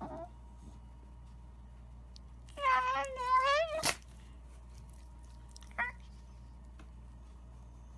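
A Shiba Inu giving one long cry with a wavering pitch, starting about two and a half seconds in and lasting about a second, then a brief second call near six seconds.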